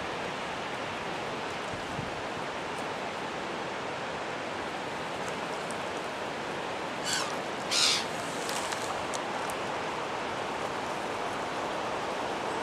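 Steady outdoor rushing hiss, with two brief high bird calls about seven and eight seconds in.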